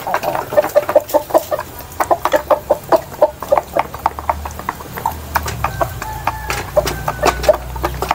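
Bangkok gamecocks clucking as they feed, with a fast patter of sharp taps from their beaks pecking grain out of a wooden trough.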